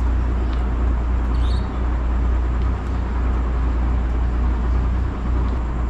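Steady low rumble and hum of background noise, with a few faint clicks.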